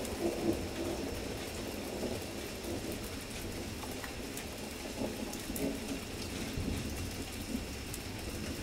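Heavy rain pouring steadily, with small drip ticks and a low rumble of thunder underneath.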